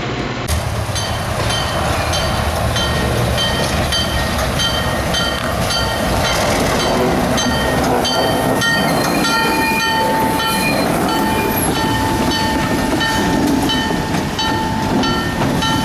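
Diesel switcher locomotive moving slowly with its engine rumbling, while its bell rings steadily at about two strikes a second. A steady tone joins about ten seconds in.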